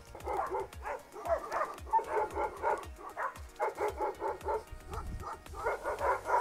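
Dogs barking continuously in rapid runs of short barks, with a couple of brief pauses. The walker takes them for the guard dogs of sheep flocks.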